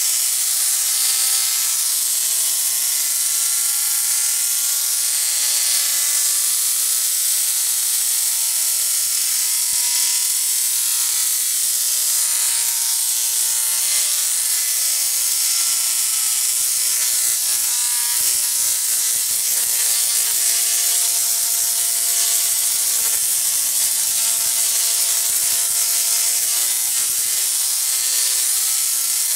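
Rotary-spark-gap Tesla coil firing continuously, sparks arcing between and off its two spaced toroids with a loud, harsh buzz. The pitch of the buzz drifts slowly up and down.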